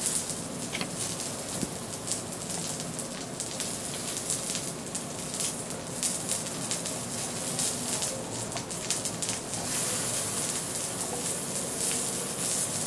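Haemul pajeon (Korean seafood and spring onion pancake) frying in oil in a pan over low heat: a steady sizzle with fine crackles.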